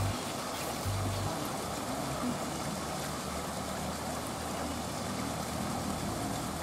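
Steady rush of water pouring from an inlet pipe into a pond. A few low bass notes of background music sound in the first second or so.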